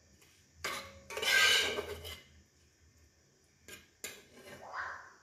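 Metal spatula scraping and stirring a curry in a dark metal kadai. There is a long scrape about a second in, then a couple of clicks of metal on the pan and a shorter scrape near the end.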